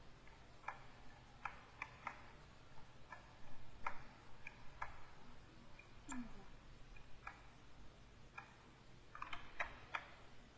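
Faint, irregular light clicks and taps of a stylus pen working on a graphics tablet, about a dozen spread unevenly with a quick cluster near the end.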